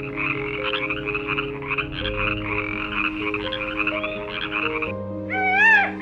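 Frogs calling in a dense, fast chatter over soft background music, stopping abruptly about five seconds in. Near the end a peacock gives one loud call that rises and falls in pitch.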